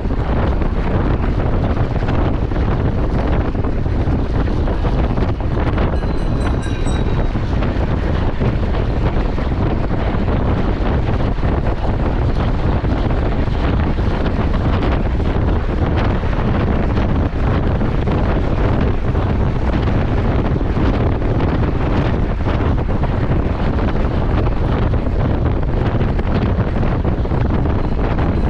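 Steady wind rushing over the microphone of a camera mounted on a track bicycle riding at speed around a velodrome.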